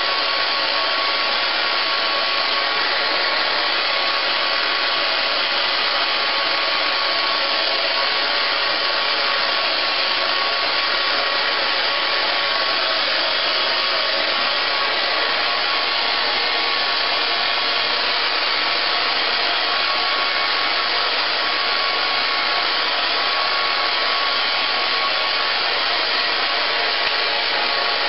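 Handheld hair dryer running steadily, blowing air onto a small dog's wet coat, a constant rush with a faint steady whine.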